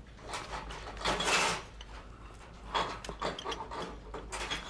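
Hands fiddling with a small object: a few short rustling, rubbing noises, the loudest about a second in.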